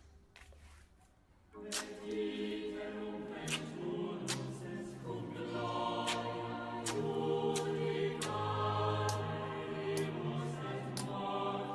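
Background choral music with sustained, layered voices that come in about one and a half seconds in, over a steady ticking beat.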